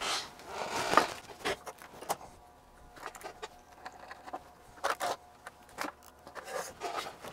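Scattered light clicks, taps and rattles as hands handle and reposition a Fluke 8000A multimeter's bare chassis, with its circuit board and plastic front panel, while getting it ready to slide into its case.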